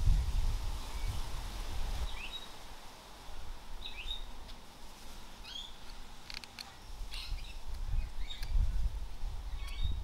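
Birds chirping: repeated short, quick chirps that sweep up or down. Between them come a few short sharp clicks as a knife pares a green-wood spoon, and there is a low rumble near the start and again from about two-thirds of the way in.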